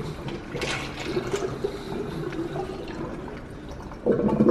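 Water splashing and trickling into a stainless-steel kitchen sink as it runs out of a pierced, tape-covered container. A louder pitched sound comes in near the end.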